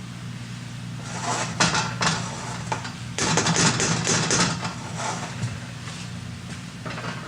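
Kitchen clatter of a pan and utensils being handled, with rustling and a few sharp knocks between about one and four and a half seconds in, over a steady low hum.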